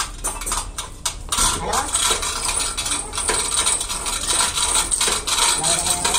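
Metallic clinking and scraping: a few separate taps at first, then a dense, rapid clatter of small metal knocks from about a second and a half in.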